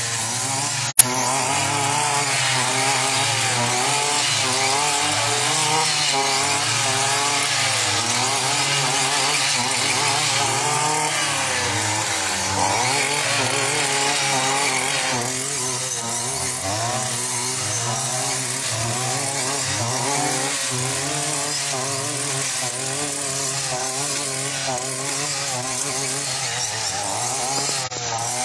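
Petrol brush cutter's engine running steadily, its pitch wavering up and down as the cutting head swings through tall grass and weeds. A single sharp click about a second in.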